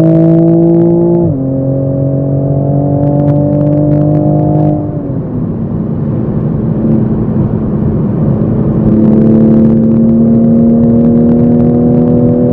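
Toyota Supra MK5 engine heard from inside the cabin, accelerating in sport mode. Its pitch climbs, drops sharply about a second in at a gear change, climbs again, drops at another change around five seconds in, then slowly rises again.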